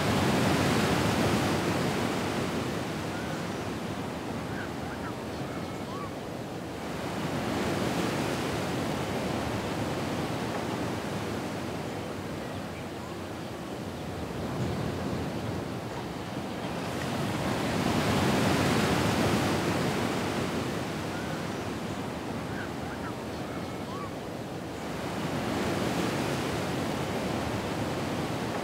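Ocean surf: waves breaking and washing in, the noise swelling and fading in slow surges every several seconds.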